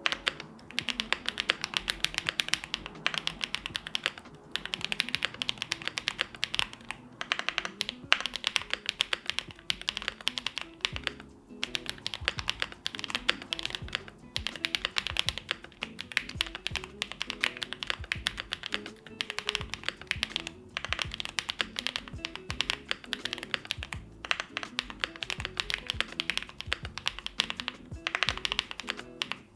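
Continuous fast typing on a Jelly Epoch mechanical keyboard with lubed White Jade switches, a polycarbonate plate and GMK Dandy keycaps: dense runs of keystroke clicks broken by brief pauses every few seconds. Soft background music plays underneath.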